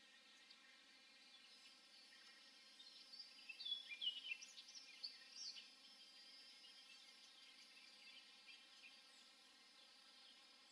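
Faint bird chirps and short calls, with a brief busy flurry a few seconds in, over a steady low background hiss.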